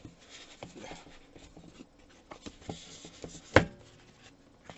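Packaging being handled while a product box is unpacked: light rustling and scraping with scattered small clicks. One sharp knock about three and a half seconds in is the loudest sound.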